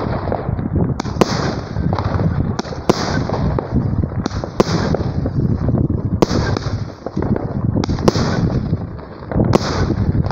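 A fireworks battery (cake) fires shot after shot, about one a second or faster. Each sharp report is followed by a short hiss.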